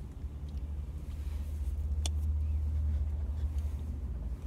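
Low steady rumble of a car heard from inside the cabin, swelling a little in the middle, with a faint click about two seconds in.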